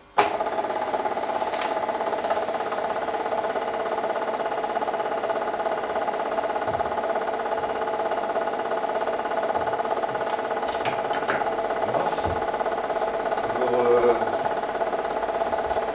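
8mm film projector running, starting abruptly and holding a steady mechanical whir made of several fixed tones.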